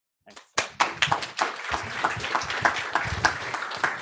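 Audience applauding, many hands clapping, starting about half a second in.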